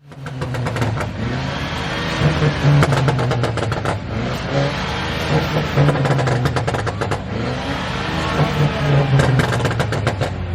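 Car exhaust revving hard, its pitch rising and falling in about three surges, with rapid crackles and pops as each surge ends.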